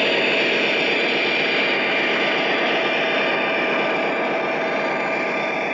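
O scale model train running past: the SD45 model locomotive's speaker plays a steady diesel engine sound from an MTH Proto-Sound 3.0 SD40-2 sound file, mixed with the wheels rolling on three-rail track, easing off slightly as it moves away.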